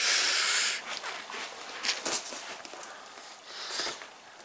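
Handling noise: a brief loud scraping hiss at the start, then scattered soft rustles and taps as a cardboard parcel and a handheld camera are moved about.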